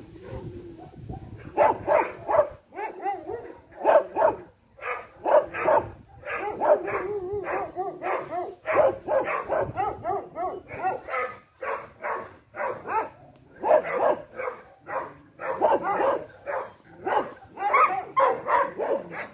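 A dog barking over and over in short calls, with wavering, whining sounds between the barks in the middle stretch.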